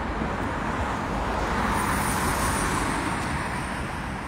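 Road traffic noise: a car passing close by, its noise swelling about two seconds in and then fading.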